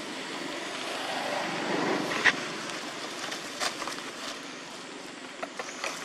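Dry leaves crackling in a few sharp snaps as a baby macaque scrambles over leaf litter, over a steady outdoor hum that swells and fades about two seconds in.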